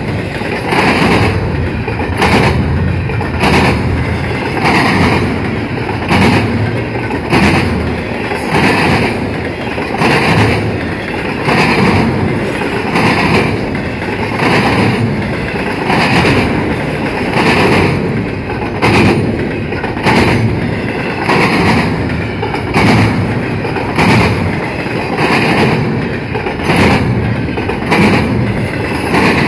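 Double-stack intermodal container train rolling past close by: a steady rumble of well cars with the wheels clacking in an even, repeating rhythm.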